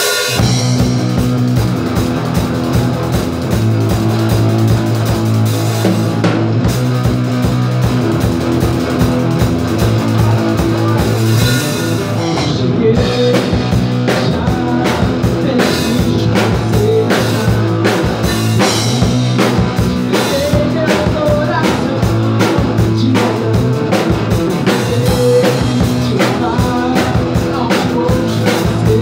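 Rock band playing live, with drum kit, bass and guitar together. The full band comes in right at the start, after a few separate drum hits.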